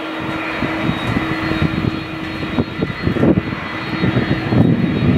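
General Electric CF6-80E1 turbofans of an Airbus A330-300 running at low taxi power: a steady jet whine with one held tone over a broad rush. Uneven low rumbling swells come and go under it.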